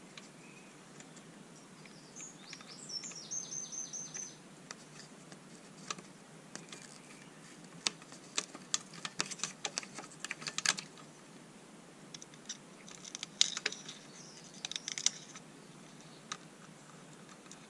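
Small metal tools clicking and tapping against wires and a circuit board in irregular clusters, during soldering work on a mixer's speed-control board. A brief high-pitched chirping trill comes about three seconds in.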